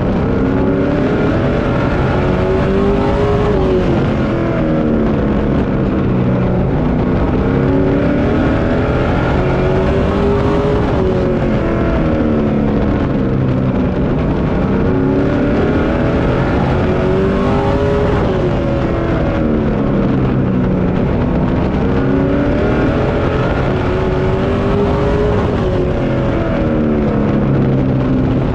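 Pro Truck stock-car race engine heard from inside the cockpit at racing speed, its pitch rising as it accelerates and falling off as it lifts, about every seven and a half seconds, once per lap of the oval.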